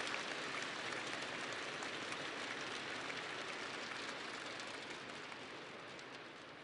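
Large audience applauding, the clapping gradually dying away.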